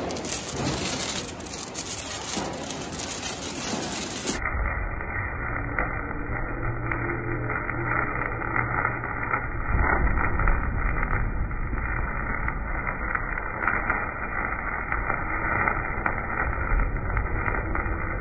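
Hand-held sparklers fizzing, with a scatter of small sharp crackles and a low rumble underneath.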